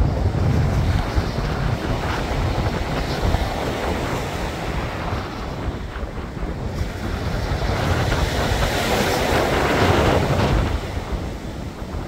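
Small waves breaking and washing up over a pebble beach, swelling to a louder surge about nine seconds in that falls away sharply near the end, with wind buffeting the microphone.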